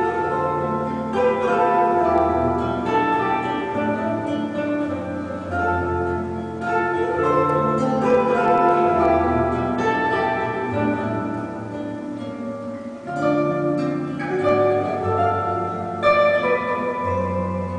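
Slow instrumental background music: plucked string notes over held low bass notes.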